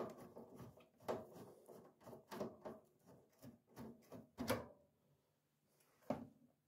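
Screwdriver turning out a screw from a tumble dryer's sheet-metal cabinet: a run of faint, irregular clicks and scrapes, about two or three a second, then one more click near the end.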